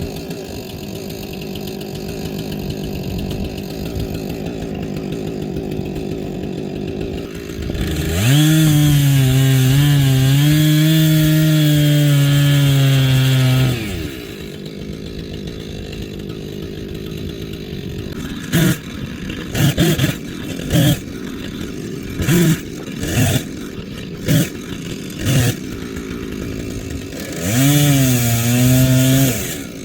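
Chainsaw idling, then opened to full throttle for about six seconds while bucking an ash log, its pitch wavering under the load of the cut. Back at idle it is blipped in several short bursts, then opened up again for another cut near the end.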